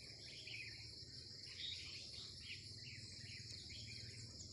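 Red-whiskered bulbuls calling in short, repeated chirpy phrases over a steady, high-pitched insect drone.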